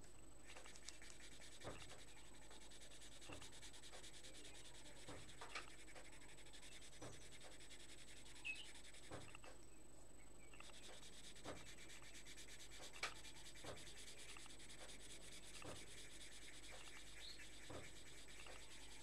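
Faint, steady scratching of a coloured pencil rubbing back and forth on paper as an area is shaded in, with light taps every second or two.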